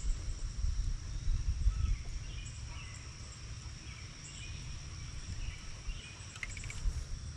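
Outdoor ambience at the water's edge: a steady high-pitched insect drone, a few short faint bird chirps, and a low wind rumble on the microphone that is strongest in the first two seconds.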